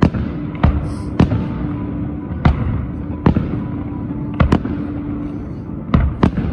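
Aerial fireworks shells bursting, about nine sharp bangs at uneven intervals, some in quick pairs.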